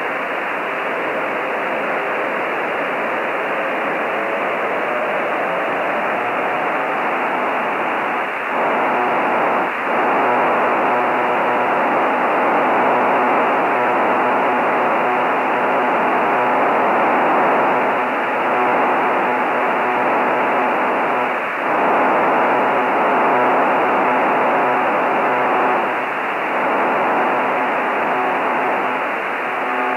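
Radio receiver hiss on the HuskySat-1 satellite downlink, cut off above about 3 kHz, with the satellite's digital telemetry signal just becoming audible. A faint tone slides upward in pitch early on, and about eight seconds in a denser buzzing signal rises out of the hiss, dropping out briefly a few times.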